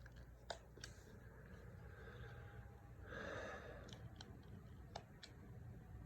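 Near silence: room tone with a few faint, scattered clicks and one soft breath about three seconds in.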